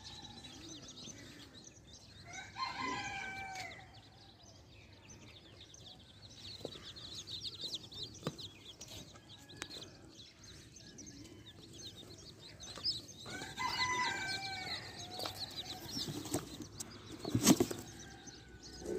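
Ayam Cemani chicks peeping steadily in a cardboard box, with a rooster crowing twice in the background, about eleven seconds apart. Near the end there is one sharp knock, the loudest sound, as the box flaps are handled.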